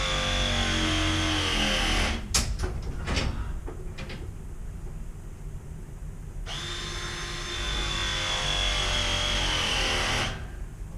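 Ridgid ProPress battery press tool crimping both sides of a 1/2 inch copper ProPress coupling in two press cycles. Each cycle is a steady motor whine lasting about four seconds. The first ends about two seconds in, followed by a few sharp clicks as the jaws are released and moved, and the second starts after about six and a half seconds.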